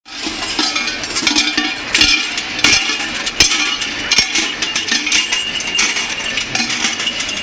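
Large metal bells worn on Krampus costumes clanging unevenly as the figures walk, with chains clinking.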